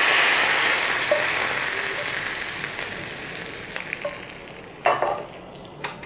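Hot desi ghee tadka with browned onions and cumin poured onto cooked chana dal, hitting it with a loud sizzle that slowly dies away. Two short knocks near the end.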